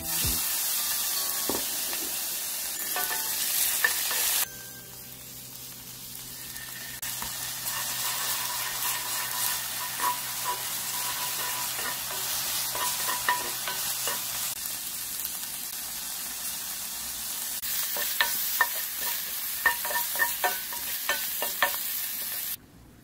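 Shrimp and minced garlic sizzling in olive oil in a nonstick frying pan while being stir-fried with a wooden spoon. The sizzle drops sharply about four seconds in and builds again, and near the end the spoon knocks against the pan in a run of quick taps.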